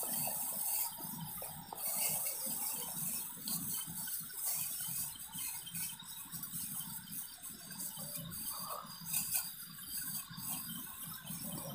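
A plastic bag crinkling and rustling as it is handled, in uneven bursts, with a cloth flapping as it is shaken out.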